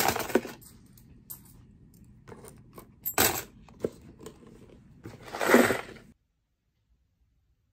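Coins clinking inside a cardboard coin bank, in a few separate short clatters, the loudest about five and a half seconds in.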